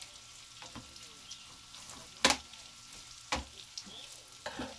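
Fish frying in a pan with a faint, steady sizzle, while a kitchen knife knocks sharply on a cutting board four times as a lime is cut. The second knock, a little over two seconds in, is the loudest.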